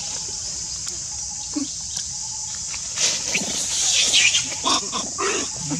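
Young macaque giving harsh, noisy squeals and grunts, starting about three seconds in and lasting a couple of seconds, over a steady high hiss.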